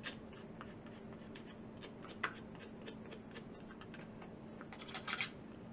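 Small handling sounds of a Distress Ink applicator being dabbed on the ink pad and rubbed onto a craft box: a scatter of faint, irregular clicks and taps over a faint steady hum.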